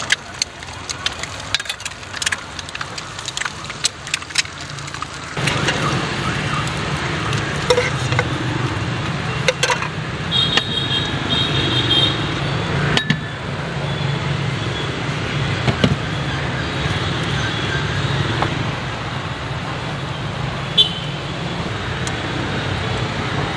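Road traffic noise that grows louder about five seconds in, with scattered light clicks and knocks early on and a brief high beeping about ten seconds in.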